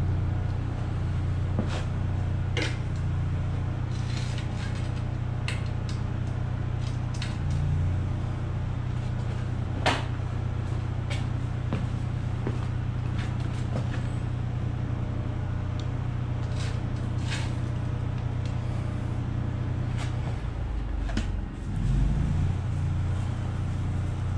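Steady low mechanical drone, with scattered clicks and knocks as metal parts and a screwdriver are handled on an air-compressor motor.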